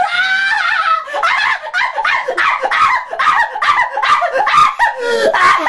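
A person's voice making a run of high, squeaky vocal noises that slide up and down in pitch in short, quick bits: a mock 'white noise' sung to someone trying to sleep.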